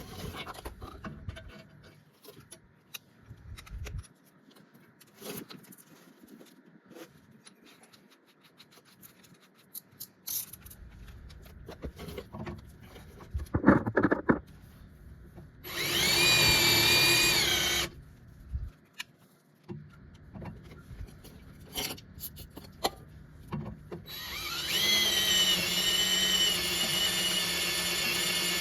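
Power drill boring holes in steel: a short run of about two seconds, then a longer run that spins up in pitch and holds steady. Clicks and a knock of handling come between the runs.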